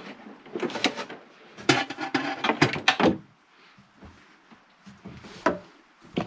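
Handling noises against a wooden wall as wiring is worked into place: rubbing and scattered knocks, a quick run of clicks and rattles between about one and a half and three seconds in, and one sharp click near the end.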